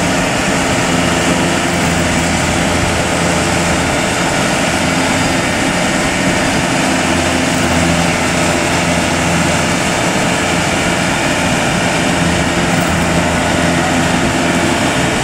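Kubota rice combine harvesters' diesel engines running hard and steady under heavy load, straining to drag a combine that has sunk in the mud back out.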